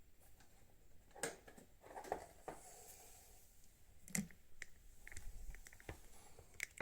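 Faint, scattered clicks and taps of headlight parts and the LED bulb being handled, including a quick run of small ticks near the end.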